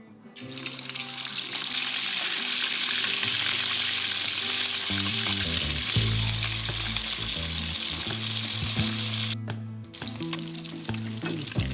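Food sizzling as it fries in hot oil in a pan. The sizzling starts about half a second in and cuts off abruptly near the end, then gives way to quieter sizzling with scattered light clicks.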